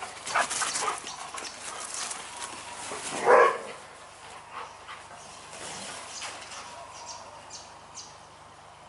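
Dogs play-fighting: quick scuffling sounds in the first couple of seconds, then one loud bark about three seconds in, with fainter scuffles after.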